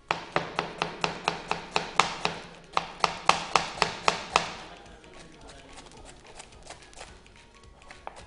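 Kitchen knife shredding cabbage on a cutting board: a quick, even run of chops, about four a second, for the first four seconds or so, then softer, lighter cuts.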